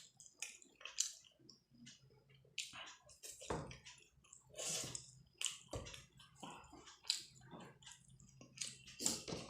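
Close-miked eating sounds of chicken momos with soup: irregular wet chewing and smacking, with a few longer slurps.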